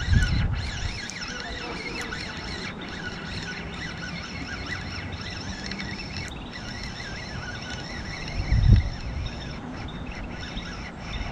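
Small birds chirping and twittering, with gusts of wind buffeting the microphone at the start and again about nine seconds in.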